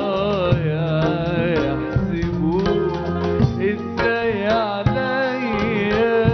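Live Arabic song: a male singer carries an ornamented, wavering melody over darbuka drumming and bass guitar.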